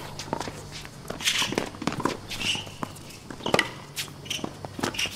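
Tennis rally on a hard court: a series of sharp pops from racket strikes and ball bounces, with scuffing of shoes on the court.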